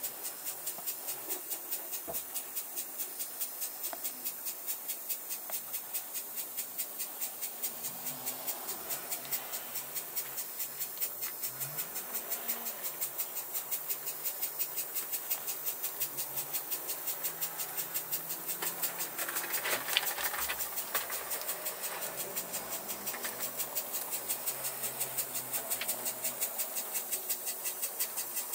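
Model train running on its layout, with a steady rhythmic beat about four times a second over a high hiss, and a short louder burst about two-thirds of the way in.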